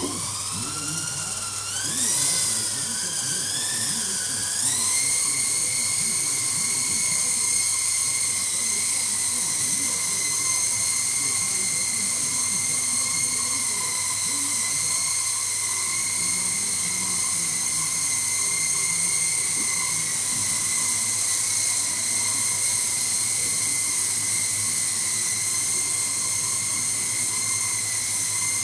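Twister Bell 47 RC helicopter's electric motor and rotors whining in flight. The pitch rises and wavers over the first few seconds as it lifts off and settles, then holds a steady high whine while it hovers.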